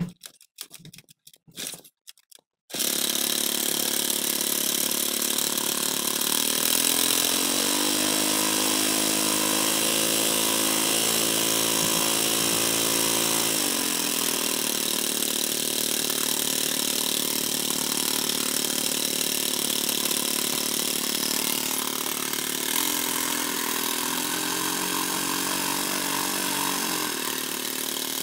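A power tool's small motor running after a few short sputters, catching about three seconds in and then running steadily. Its pitch rises around eight seconds in and drops back near fourteen, and it speeds up and slows again between about twenty-three and twenty-seven seconds.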